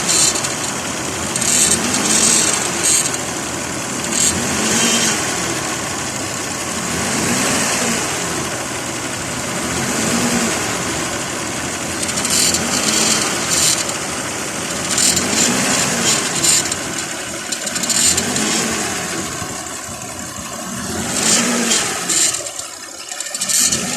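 Engine running with a rising and falling sound that repeats every two to three seconds, with sharp high-pitched bursts along with it.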